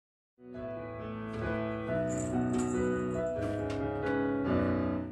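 Background music: a piano tune that starts suddenly about half a second in and cuts off near the end.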